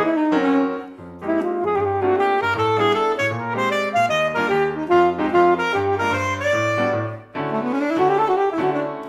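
Alto saxophone playing a fast, jazz-inflected melody over piano chords and bass notes. The music briefly drops about a second in and again about seven seconds in, where a new phrase starts.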